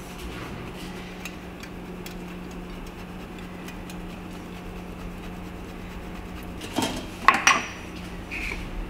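Hard cheese grated over a plate of spaghetti, with faint scraping ticks over a steady low hum, then a few loud sharp clinks about seven seconds in.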